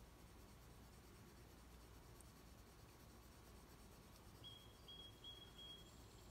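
Faint scratching of a purple colored pencil shading on paper. Near the end, four short high-pitched tones sound in quick succession.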